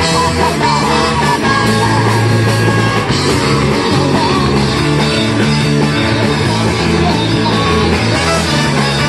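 Live rock band with a horn section (saxophones, trombone and trumpet) over drums, bass and electric guitar, playing loud and without a break.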